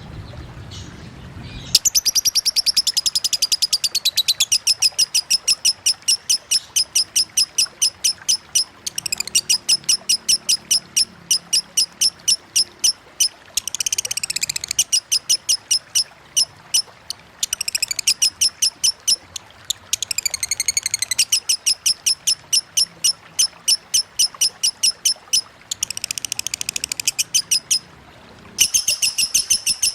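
Lovebird 'ngekek': long runs of rapid, repeated high chirps broken by short pauses, with a few warbling phrases mixed in.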